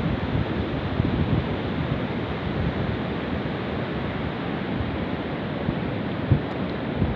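Steady rush of flowing water, with wind buffeting the microphone in a brief low thump about six seconds in.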